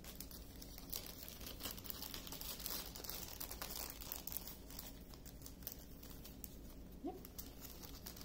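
Faint crinkling and rustling of small clear plastic drill bags being handled, with scattered light clicks.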